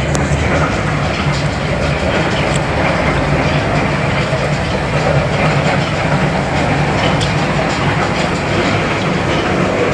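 Machinery in a copra oil mill running: a loud, steady mechanical din with a low hum underneath.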